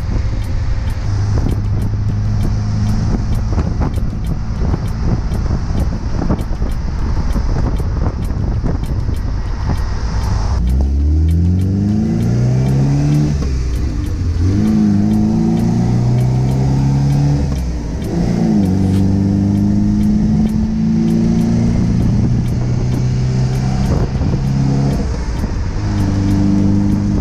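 1974.5 MGB's 1.8-litre four-cylinder engine. It first cruises steadily under heavy wind and road noise. From about eleven seconds in it accelerates hard, its note rising and then dropping at each of several gear changes.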